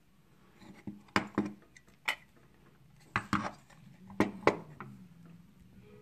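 Handling noise from an old metal clock case being turned over and set down on a wooden tabletop: a scattering of about eight sharp clicks and knocks, some with a short metallic ring.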